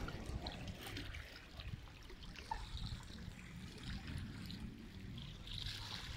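Lake water lapping gently at the shoreline, over a low steady rumble.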